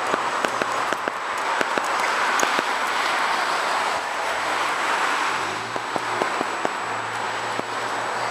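Footsteps of a person jogging in running shoes and a dog trotting on wet asphalt, heard as many small irregular ticks over a steady rushing outdoor noise. A low hum joins about five seconds in.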